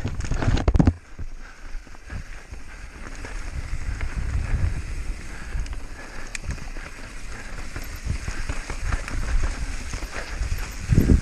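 Mountain bike descending fast over a rough race trail: tyres on dirt and rock with the bike rattling and a steady low rumble, and a loud clatter of knocks in the first second and again at the very end.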